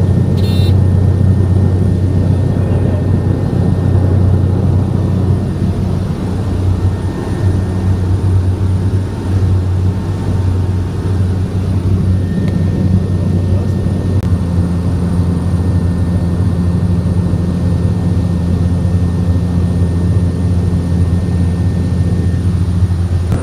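Seaplane's propeller engine running at takeoff power, heard from inside the cabin as a loud, steady deep drone. Its note shifts slightly about fourteen seconds in as the plane climbs away from the water.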